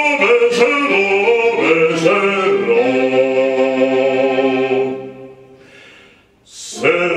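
A man singing unaccompanied in operatic style: a few short phrases, then a long held note that fades away about five seconds in. After a short silence comes a quick breath, and the singing starts again near the end.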